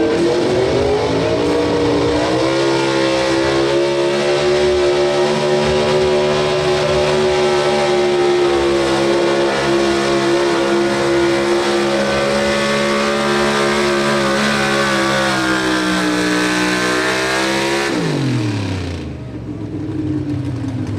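Pro Stock 4x4 Ford pickup's pulling engine revving up and held at high rpm under full load as it drags the sled. About 18 seconds in, the engine note falls off steeply as the pull ends, settling to a lower running note.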